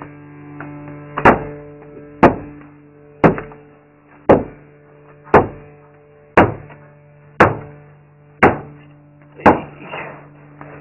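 Hammer blows struck at an even pace of about one a second, each a sharp loud strike that rings briefly, over a steady low hum.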